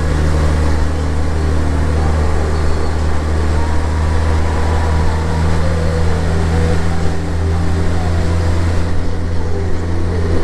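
Honda Gold Wing's flat-six engine running steadily at cruising speed, a constant low hum mixed with wind and road noise.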